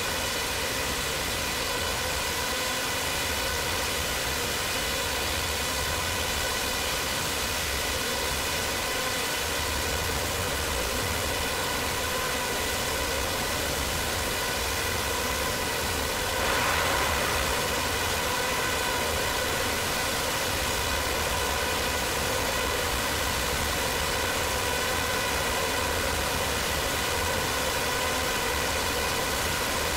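Intentional digital feedback loop in Ableton Live, run through delay, distortion and reverb effects: a steady noisy drone with a comb of evenly spaced ringing tones, swelling briefly a little past halfway.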